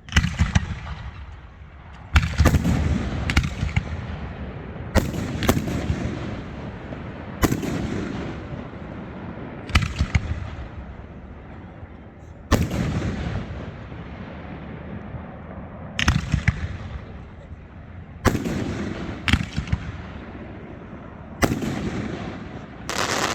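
Fireworks exploding: about a dozen sharp bangs, one every one to three seconds, each followed by a long rolling echo.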